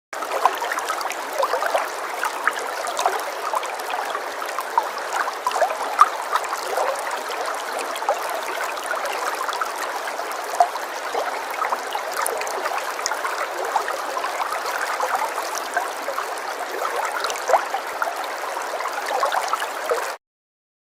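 Small stream of water falling and trickling, a steady splashing babble full of small drip-like splashes. It cuts off abruptly to silence near the end.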